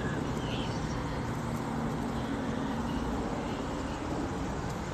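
Steady outdoor background rumble with no clear events, heaviest at the low end, with a faint low hum in the middle.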